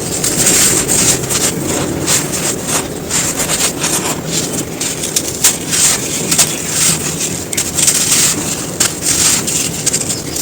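Dry, dusty clumps of pure sand crumbling, a dense, continuous run of crisp crunching and crackling.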